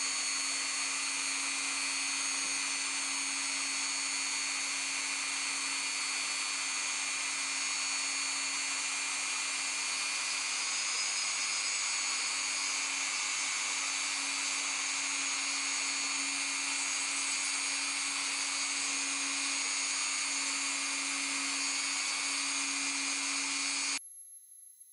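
Dremel rotary tool running steadily at 15,000 RPM with a 1/8-inch 60° V-bit, thread milling an M4 thread into a beech spigot: a steady hum with a high whine and hiss. It cuts off suddenly near the end.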